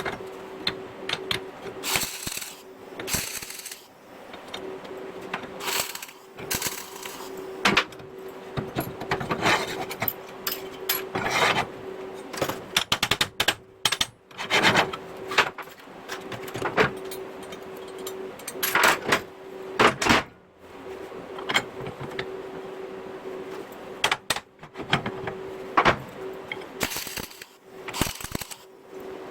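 Metal parts clinking and knocking as they are handled, in short irregular strikes, over a steady low hum.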